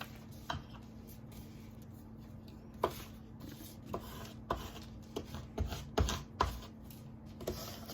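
Scattered crinkles, snips and light taps of transfer tape and vinyl being cut and handled on a tabletop, with a few dull knocks about six seconds in, over a faint steady hum.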